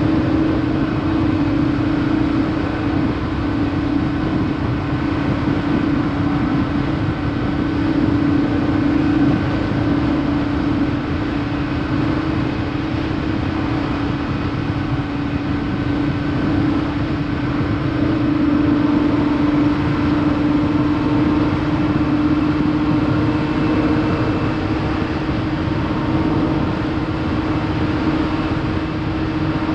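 Honda CB400 Super Four's inline-four engine running at a steady, high cruising pitch over a constant rush of wind and road noise, as heard from the moving bike.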